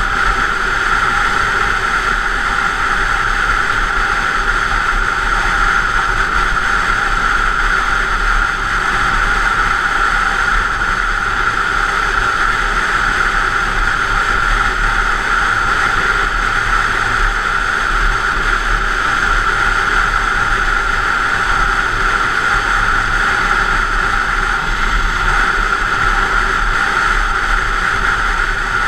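Steady wind rush and engine drone heard from a camera mounted on a vehicle cruising at an even speed; the pitch holds level throughout, with no revving or gear changes.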